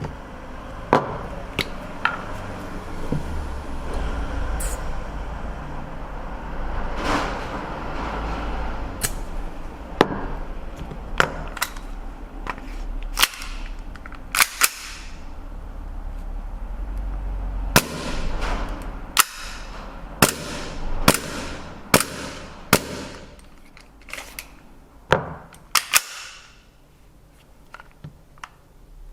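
WE XDM-40 gas blowback airsoft pistol firing single shots: about twenty sharp pops at uneven intervals, some close together and some a second or more apart, over a low steady rumble.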